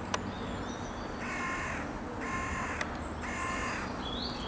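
A crow cawing three times, each harsh call about half a second long and about a second apart, over a steady low rumble.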